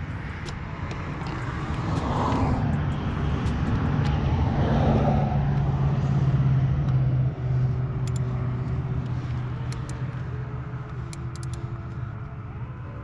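Car engine running steadily, growing louder for a few seconds and dropping back suddenly about seven seconds in, with a few faint clicks.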